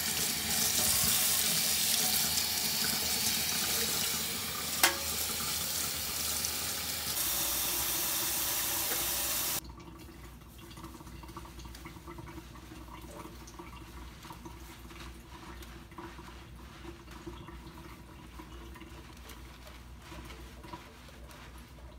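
Kitchen faucet running, water splashing over hair into a stainless steel sink, with a single sharp click about five seconds in. The water sound stops abruptly about ten seconds in, leaving only a faint low background.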